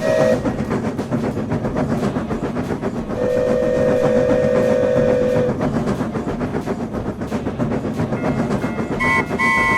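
A train running past with a continuous rumble and clatter of wheels on rails. About three seconds in it sounds a steady horn for about two seconds, and near the end a second, higher horn tone starts.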